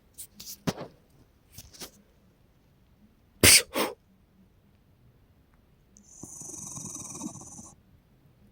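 An old dog sneezes, a short double burst. A few seconds later comes a steady hiss lasting under two seconds.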